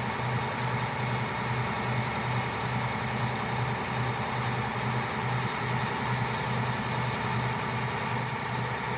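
Maco drilling rig's engine running steadily, with a low throb pulsing about twice a second.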